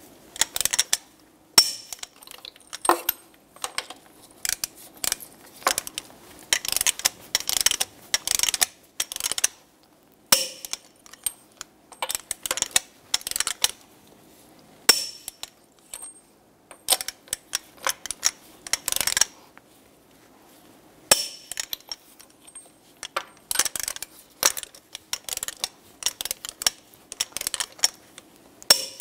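Torque wrench on a socket, tightening truck lug nuts to 140 foot-pounds in a cross pattern: runs of quick ratchet clicks as the handle is worked, broken by short pauses as the wrench moves from nut to nut.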